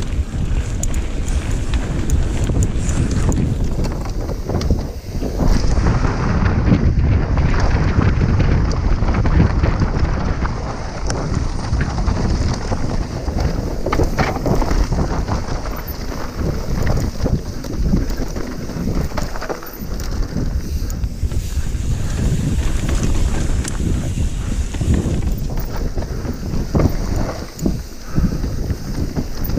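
Wind buffeting the microphone of a mountain bike descending a dirt singletrack, with the tyres running over dirt and gravel and the bike rattling over bumps in many short knocks.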